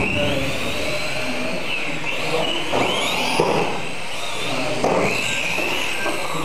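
Several electric radio-controlled mini racing cars lapping together, their motors whining high and overlapping, each pitch rising and falling as the cars accelerate and slow for the corners.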